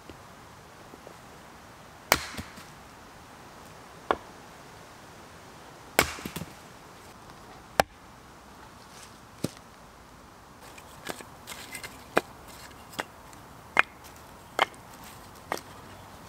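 Hatchet splitting firewood on a wooden chopping block: about five sharp chops, roughly two seconds apart. In the last few seconds come many lighter wooden clacks as the split sticks are picked up and knocked together.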